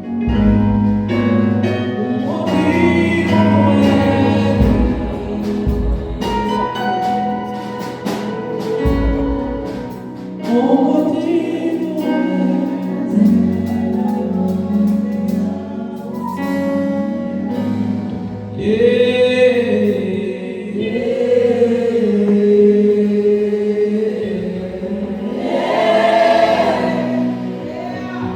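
Gospel choir singing live, several voices together over a steady low instrumental backing.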